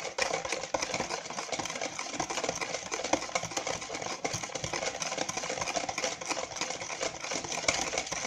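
Wire hand whisk beating batter in a plastic bowl: a fast, steady clatter of the wires against the bowl.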